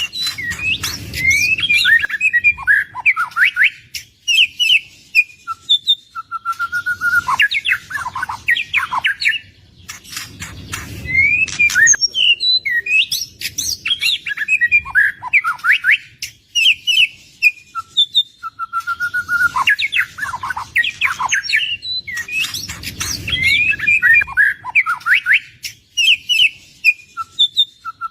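White-rumped shama (murai batu) singing continuously: fast, varied whistled phrases, gliding notes and rapid chirps, with held whistles between them. The same song sequence repeats about every eleven seconds.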